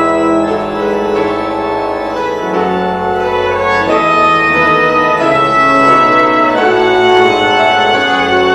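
Instrumental music from a choral anthem: sustained organ-like keyboard chords with piano, the chords changing every second or so.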